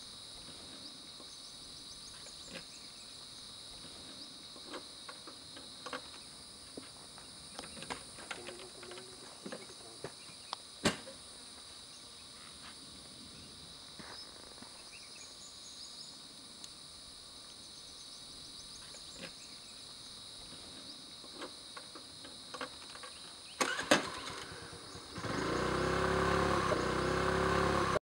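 Steady high drone of insects in the trees, with scattered small clicks and knocks and one sharp click about eleven seconds in. About twenty-five seconds in, a much louder steady sound with a fixed pitch comes in and runs until it cuts off.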